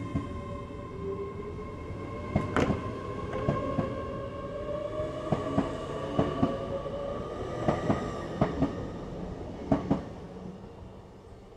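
A Class 8xx IET electric multiple unit running past on the platform line. Its wheels make a string of sharp irregular clicks over the rail joints, over a steady whine with a second tone rising slowly in pitch. The sound fades near the end as the train draws away.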